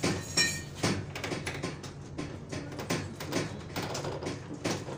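Loose metal and cargo rattling and knocking in the back of a moving van over the steady rumble of the engine and road, with a short squeak about half a second in.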